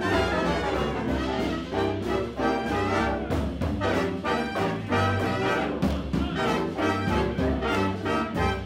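Swing jazz with trumpets and trombones playing over a steady, even beat, the music for lindy hop dancing.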